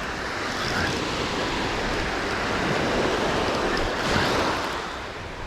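Surf washing up the beach, a steady rush of breaking waves that swells about four seconds in and then eases.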